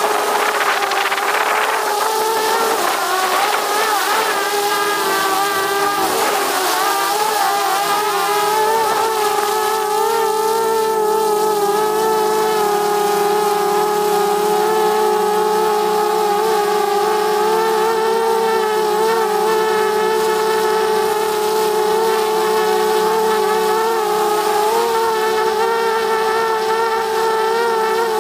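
DJI Mavic Mini's propellers and motors whining close up, a loud, steady buzz with several pitches stacked together. The pitch wavers over the first several seconds, then holds level.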